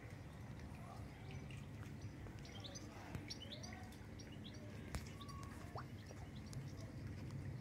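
Birds chirping faintly outdoors, a quick run of short high chirps about three seconds in, over a low, steady rumble of running pond water. A single sharp click stands out about five seconds in.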